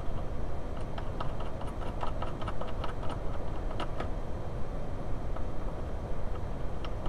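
Small, sharp metallic clicks and ticks from tools and nuts being threaded onto the end of a car's handbrake cable, coming thickly for a few seconds from about one second in and then only now and then, over a steady low background rumble.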